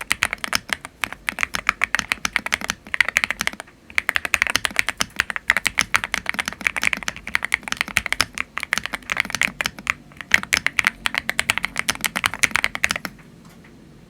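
Fast continuous typing on a GMK70 split mechanical keyboard with Akko Stellar Rose switches and EAO profile keycaps, a rapid run of keystrokes with a brief pause just before four seconds in, stopping shortly before the end.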